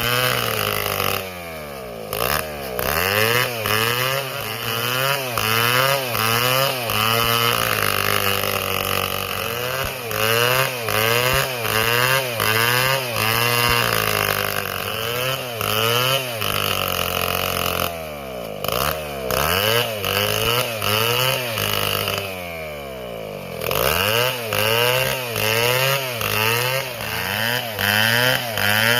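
Stihl two-stroke chainsaw engine revved up and down over and over, about once a second, dropping back briefly to idle three times.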